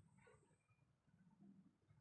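Near silence, with a sleeping dog's faint, low snoring that swells a little in the second half.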